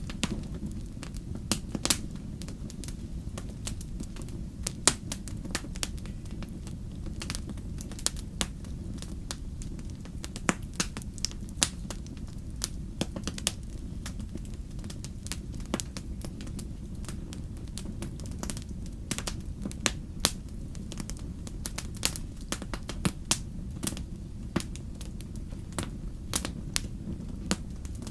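Wood fire crackling in a fireplace: irregular sharp snaps and pops, a few of them louder, over a steady low rumble of the burning.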